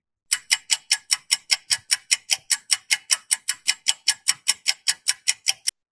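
Clock-ticking sound effect, about five even ticks a second, used as a countdown while the quiz answer is withheld.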